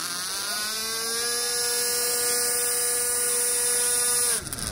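Electric motor of a radio-controlled F-14 model jet whining in flight. The pitch rises slightly in the first second, holds steady, then cuts off sharply near the end.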